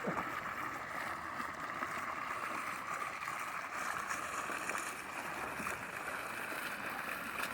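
Water fountain splashing, a steady even rush of falling water.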